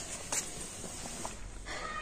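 A few light clicks and knocks of a spoon against a metal pan as the cooked pickle is scooped out, with a short pitched sound near the end.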